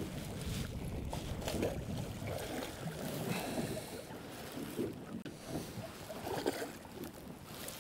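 Wind buffeting the microphone and sea water lapping around a small open boat, with a few faint knocks.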